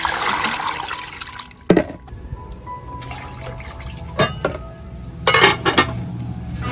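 Water splashing and pouring for about a second and a half, followed by a few sharp knocks and clinks spread over the next few seconds, with background music.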